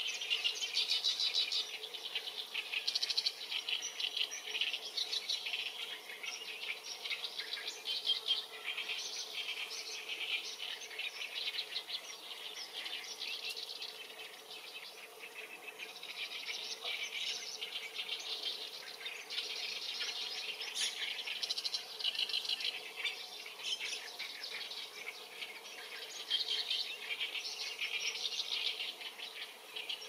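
Dense chorus of rapid, high-pitched chirps and trills from wetland wildlife, in overlapping bouts with a brief lull about halfway through, over a faint steady low hum.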